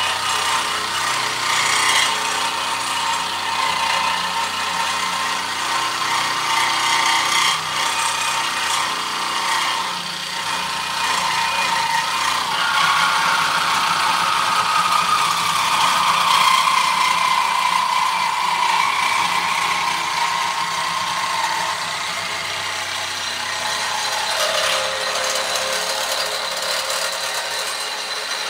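Compact 20V cordless reciprocating saw cutting through steel bar stock held in a vise. The blade makes a steady buzzing rasp in the metal, and its pitch drifts up and down with the motor speed.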